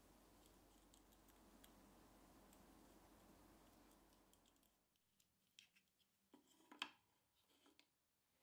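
Faint clicks and taps of small metal parts being handled: the aluminium laser-marker bracket, its screws and the brass laser module. The sharpest click comes about seven seconds in, after a first half of near silence with a faint hum.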